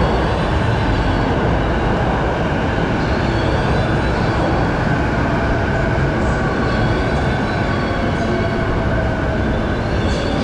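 Electric train noise: a loud, steady rumble with a faint whine of a few held tones above it.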